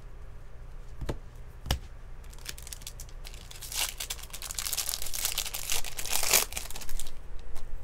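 Two short, sharp clicks, then a baseball card pack's foil wrapper being torn open and crinkled. The tearing starts about three seconds in, lasts roughly four seconds, and is the loudest sound.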